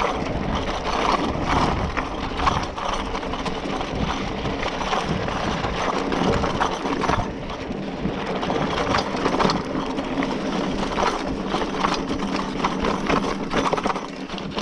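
Scott Spark 960 mountain bike rattling over a rocky dirt trail: a steady clatter of tyres on loose stones, with the shaken frame and a loose tool bag rattling along.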